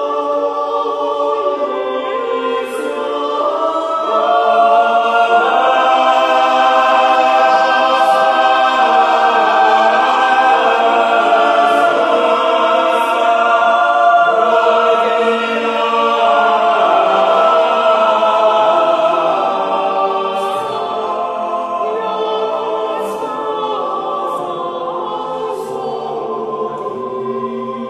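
Choir singing a cappella in slow, sustained chords, swelling louder a few seconds in and easing off again after about twenty seconds.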